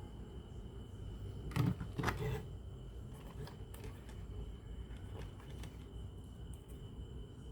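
Two louder knocks about one and a half and two seconds in, then scattered light clicks, over a steady low hum and a faint steady high tone.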